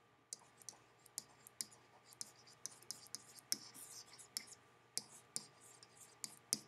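Faint, irregular ticks and light scratching of a stylus handwriting on a pen tablet, several taps a second as each stroke touches down.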